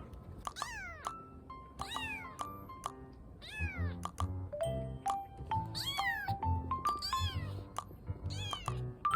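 A very young kitten mewing over and over, about eight high-pitched mews that each fall in pitch, with background music playing underneath.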